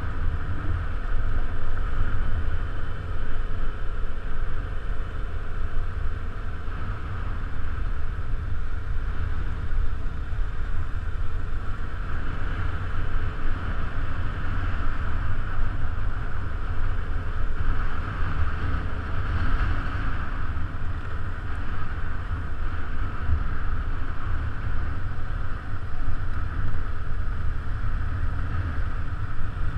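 Motorcycle riding along a gravel track, heard from a camera mounted on the moving bike: a steady engine drone under heavy wind rumble on the microphone.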